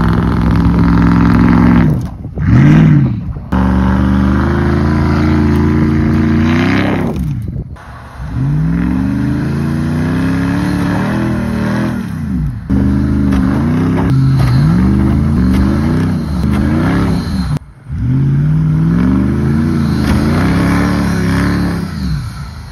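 Pickup truck engine revving hard again and again, the pitch climbing and dropping with each push, with several abrupt breaks. The engine is straining to pull a truck that is stuck in deep snow.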